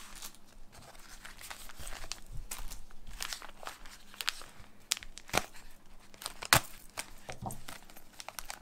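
Plastic MRE accessory packet being torn open and its contents rustled and crinkled by hand: an irregular crackling with a couple of sharper snaps late on.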